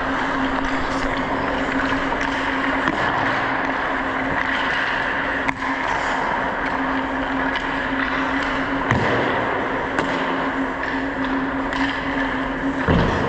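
Ice skate blades scraping and carving on a hockey rink, with a few sharp knocks scattered through, over a steady low hum.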